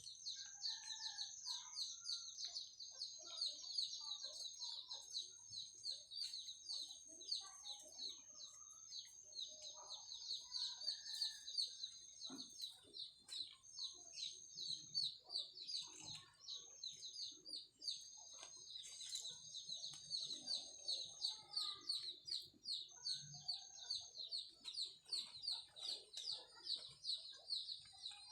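Chickens clucking and birds chirping, over a constant, rapid high-pitched trill.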